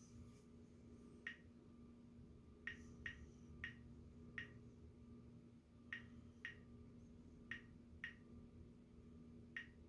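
Geiger counter clicking sparsely and irregularly, about ten short clicks, as it counts radiation at a low rate with the uranium ore moved far from the tube.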